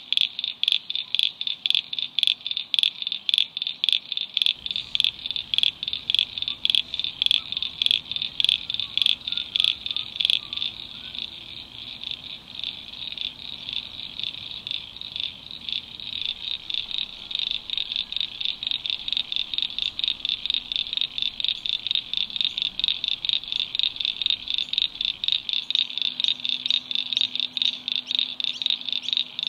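Wetland animal calls: a high chirp repeated about three times a second, thickening into a denser chorus of overlapping callers after about ten seconds.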